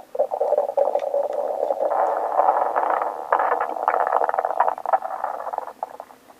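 A stomach growling on waking, recorded up close: one long bubbly gurgle that builds over the first couple of seconds, is loudest in the middle, and breaks into short crackling gurgles near the end.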